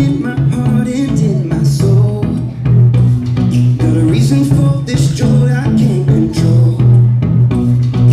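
Recorded dance music with a steady beat and a pulsing bass line, played over a hall's loudspeakers for a stage dance.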